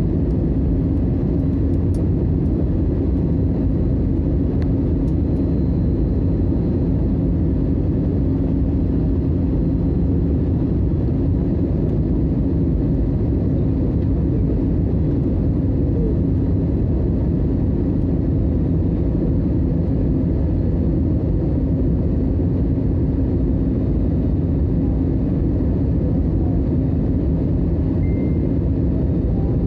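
Jet airliner cabin noise during descent on approach: the engines and rushing airflow make a steady, unchanging rumble with a constant low hum through it.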